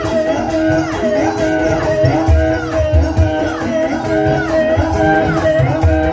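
Ebeg (kuda lumping) dance accompaniment music: sustained steady tones with a gliding melodic figure repeating over and over, driven by regular low drum beats.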